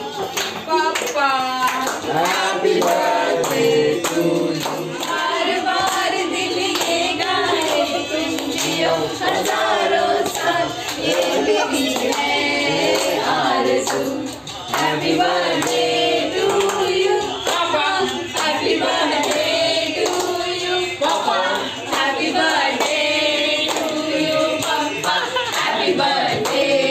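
A group of people singing together, with hand-clapping in time.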